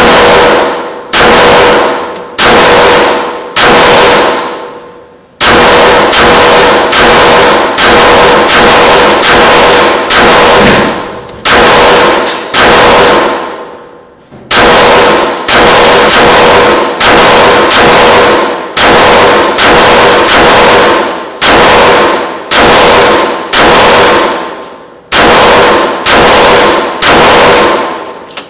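Shadow Systems MR918 9mm pistol firing a long string of about thirty shots at a steady pace of roughly one a second, with two short breaks. Each shot is very loud and echoes in the indoor range.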